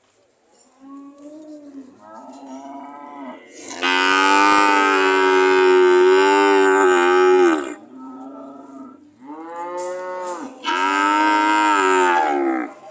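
Cattle mooing: a few softer, lower moos, then a loud, long moo of almost four seconds starting about four seconds in, and a second loud moo near the end.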